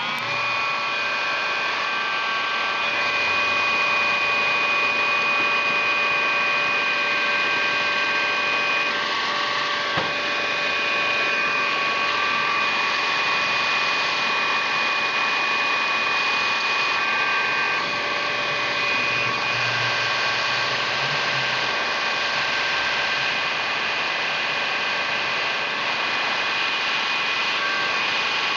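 Electric heat gun running steadily: a constant rush of blown air with a steady whine from its fan motor.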